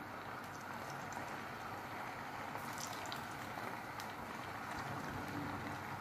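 Boiled chicken drumsticks frying in a pan of hot oil: a steady sizzle with scattered small crackles.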